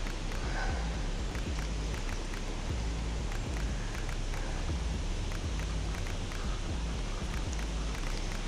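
Wind buffeting the microphone in irregular low rumbles over a steady outdoor rushing hiss, with faint scattered ticks.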